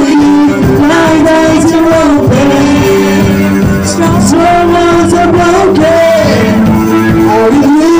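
A live worship band playing a song: a man sings the lead through a microphone, with sustained notes stepping in pitch, over electric guitars, bass and drums.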